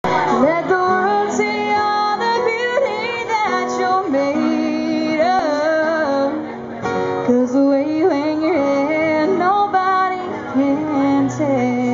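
A woman singing a song, accompanied by two acoustic guitars.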